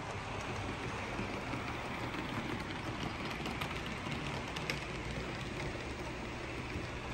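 HO scale model trains rolling along the layout's track: a steady rolling hiss, with a few faint wheel clicks in the middle.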